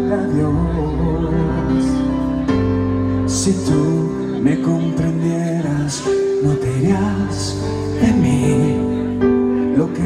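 Live band music with a man singing into a microphone, holding long notes and sliding between them.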